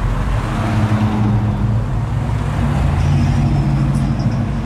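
Classic Chevrolet cars driving slowly past, engines running with a steady low rumble that drops to a lower pitch about halfway through.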